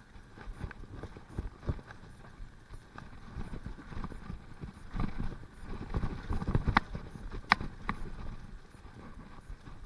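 Mountain bike riding fast down a wet dirt singletrack: tyres on the trail and the bike and camera rattling over bumps in irregular low thuds. A few sharp clicks come about two-thirds of the way in.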